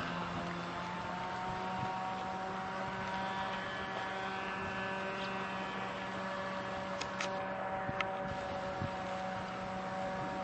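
Small fixed-wing drone's motor and propeller buzzing steadily as it flies overhead, its pitch drifting slightly. A few brief clicks about seven to eight seconds in.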